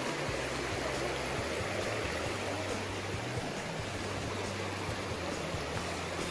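Shallow mountain creek running over rocks: a steady rush of water.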